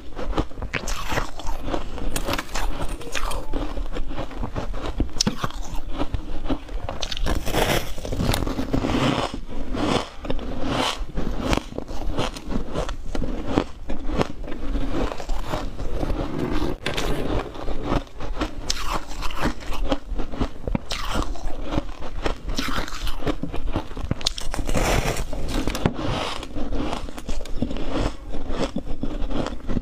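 A person biting into and chewing a large chunk of refrozen freezer frost ice: a dense run of crisp crunches, one after another without pause.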